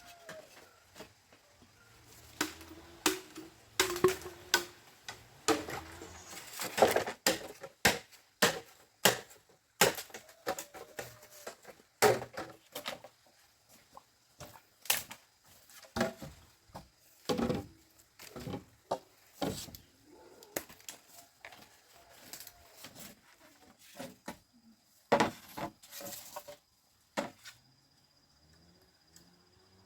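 A run of sharp knocks and chopping strikes on wood, irregular, about one or two a second, stopping near the end. A chicken calls faintly at the very start, and animal calls come in near the end.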